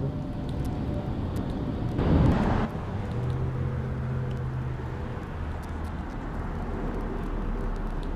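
Street traffic: vehicles running and passing, with a short, louder rush of noise about two seconds in and a steady engine hum after it.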